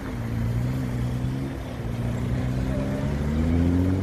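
Nissan GT-R's twin-turbo V6 pulling away at low revs, its exhaust note climbing gently in pitch about three seconds in as the car picks up speed.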